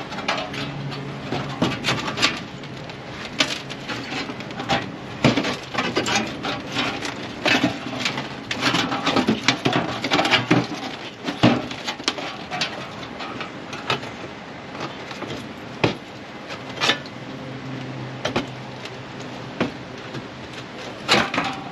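Thin sheet steel from an old fridge clanking and knocking irregularly as it is handled and worked, many sharp hits throughout.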